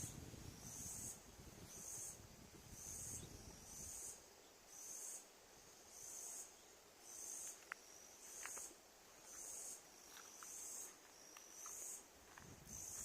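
A faint insect call: short, high-pitched buzzing pulses repeating evenly, a little over one a second. A low rumble sits under it for the first few seconds, and a few faint short chirps come around the middle.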